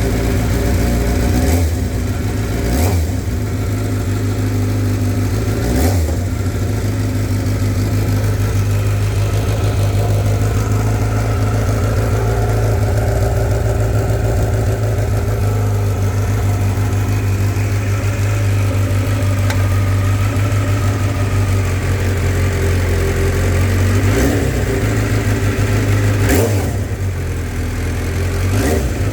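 Motorcycle engine with an Akrapovic header and the stock muffler, idling and being revved: several quick throttle blips near the start and again near the end, with a steady idle between them.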